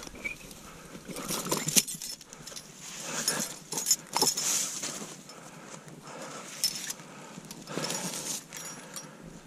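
Crunching and scraping in snow, with light metallic clinks coming in several separate bursts, as a steel sable trap is dug out and taken off its set.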